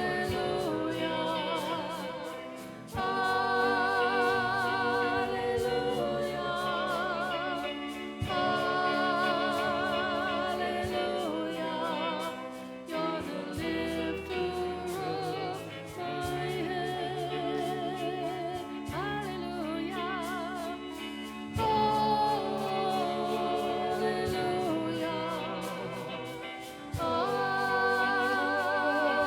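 Live worship music: voices singing a melody with vibrato in phrases of a few seconds, over instrumental accompaniment with a steady beat.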